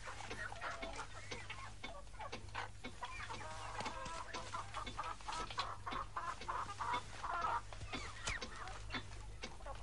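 Chickens clucking faintly in the background, many short calls one after another, over a steady low electrical hum.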